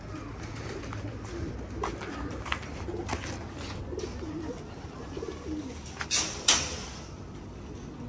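Domestic pigeons cooing in low, wavering calls, with a few short clicks and a brief loud rustling burst about six seconds in.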